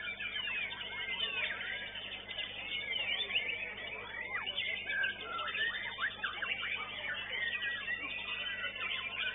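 White-rumped shamas (murai batu) singing, several at once: fast, overlapping whistles, trills and sweeping notes that go on without a break, over a steady low hum.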